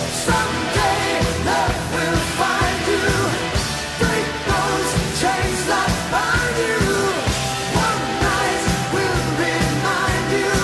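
Rock song with a sung vocal line over a steady drum beat.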